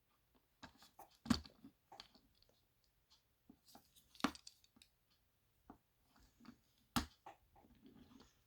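Small die-cast metal toy cars and a plastic storage case being handled: scattered light clicks and taps, with a few sharper knocks among them.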